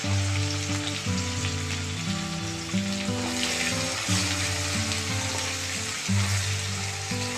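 Chopped onions sizzling in hot oil in a wok as they are stirred with a spatula. Background music with held melody notes plays underneath.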